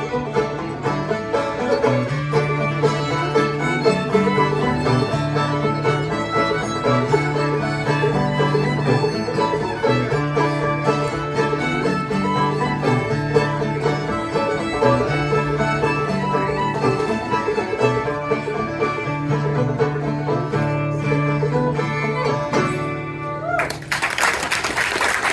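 Old-time Appalachian string band playing a fiddle tune: two fiddles in unison over two clawhammer banjos and an acoustic guitar. The tune ends about a second and a half before the end, and audience applause follows.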